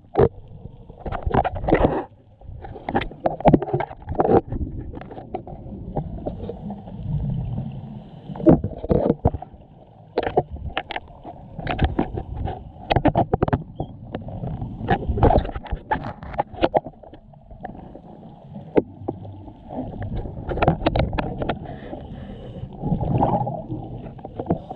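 Muffled underwater sound through a camera's waterproof housing on a scuba dive: bubbling rumbles from the diver's regulator exhalations, swelling and fading every few seconds, with many sharp clicks and knocks.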